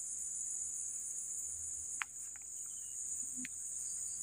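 Steady high-pitched chorus of insects trilling, with two brief faint clicks about two seconds and three and a half seconds in.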